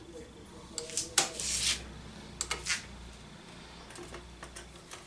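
Old sewing machine being handled: irregular mechanical clicks and knocks, with a short loud noisy burst about a second in and a few more clicks near the middle and end.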